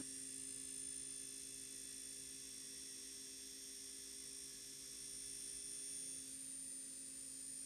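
Faint steady electrical hum made of several constant tones, with no cutting noise from the mill.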